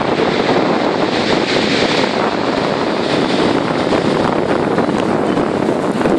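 Sea surf breaking and washing up a shingle beach, foam hissing over the pebbles, with wind on the microphone.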